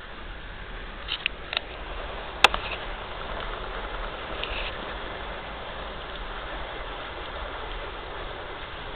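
Steady rushing and rumbling of an express train running at about 120 km/h, heard from inside the passenger carriage. A few sharp clicks come between one and two seconds in, and a louder one about two and a half seconds in.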